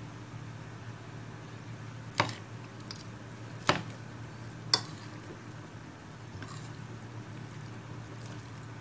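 Chopsticks and a metal spoon tossing noodles and herbs in a ceramic bowl, clinking sharply against the bowl three times, about two, three and a half and four and a half seconds in, over a steady low hum.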